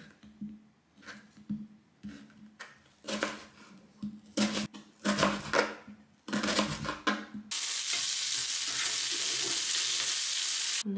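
A knife slicing through an onion onto a plastic cutting board, a series of uneven cuts. About seven and a half seconds in, this gives way to bacon and sliced onion sizzling steadily in a frying pan.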